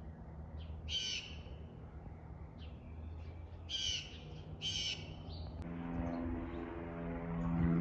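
Three short bird calls, about a second in, near four seconds and near five seconds, over a faint steady low hum. In the last two seconds a low, steady drone comes in and grows louder.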